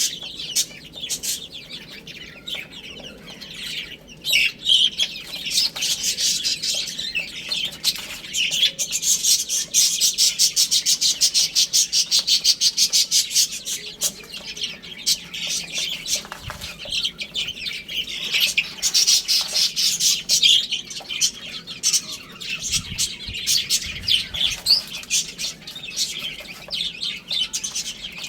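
A flock of baby chicks peeping: a dense, overlapping run of rapid high chirps, thickest in the middle.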